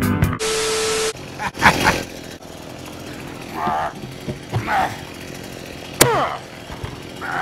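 A short burst of static with a steady beep, then a plastic bucket being stabbed through with a metal spike: sharp hits with the plastic ringing, about two seconds in and again near the end.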